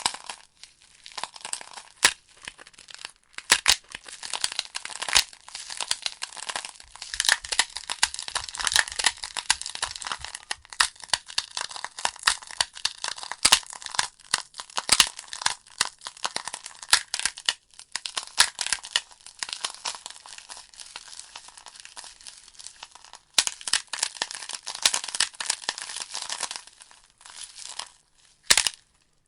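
Wood fire crackling in a fireplace: irregular sharp pops and snaps from the burning logs over a steady hiss, with a brief lull near the end.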